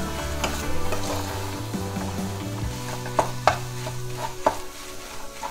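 Spatula stirring and tossing noodles and scrambled egg in a frying pan, with a light sizzle from the hot oil. The spatula scrapes and knocks against the pan a few times after the middle.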